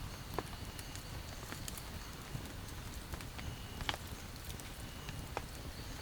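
Rainforest ambience: a steady, thin high insect drone over a low rumble, with scattered irregular ticks and taps, the loudest about four seconds in.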